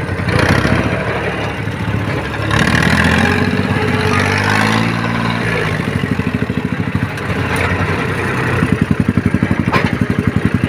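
Engine of a log-laden E-taen farm truck working under load as it sets off. It revs up about two and a half seconds in, drags down in pitch around the middle, then settles into an even, fast pulsing run near the end.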